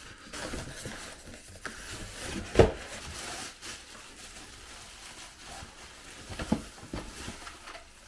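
Plastic bag wrapping crinkling and styrofoam packing inserts rubbing and scraping as a cordless stick vacuum's main unit is unpacked, with a few knocks from parts bumping, the loudest about two and a half seconds in.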